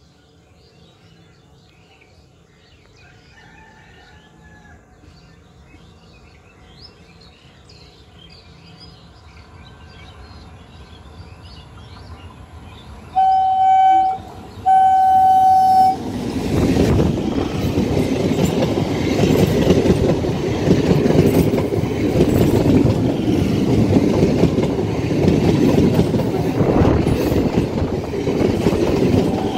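Electric multiple unit local train approaching with a slowly rising rumble. About thirteen seconds in it sounds two loud, steady horn blasts in quick succession. It then passes close by with loud rumbling and wheel clatter from its coaches.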